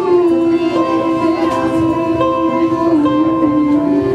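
Acoustic folk band playing an instrumental passage: accordion, upright bass and a plucked string instrument, with long held notes that shift pitch a few times.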